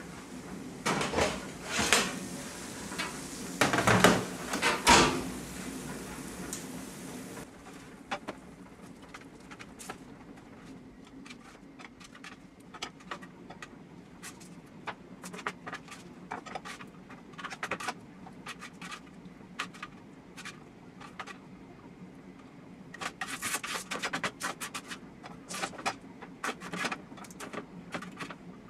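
A metal baking tray clatters as it is pulled from the oven and set down, over a steady hiss that stops about seven seconds in. Then come light, scattered clicks and taps as food is scooped from the tray into plastic meal-prep boxes.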